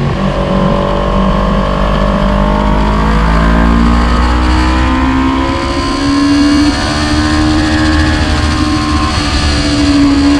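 Motorcycle engine at track speed heard from onboard, over low rushing noise. Its pitch sinks through the corner over the first few seconds, then climbs again from about halfway as the rider accelerates out onto the straight.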